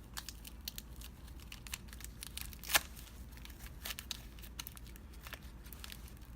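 Packaging crinkling and rustling as it is handled, with scattered light clicks and one sharper click a little under three seconds in.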